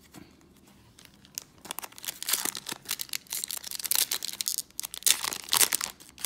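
Foil wrapper of a Yu-Gi-Oh! booster pack being torn open and crinkled by hand. After a brief quiet, the crackling comes in irregular bursts that get louder.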